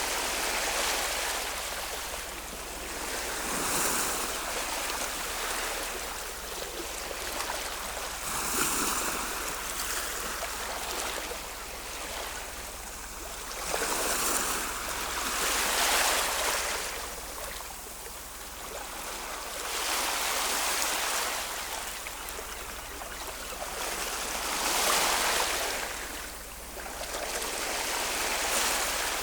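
Ocean surf: a steady rush of waves that swells and falls every few seconds as each wave breaks and washes in.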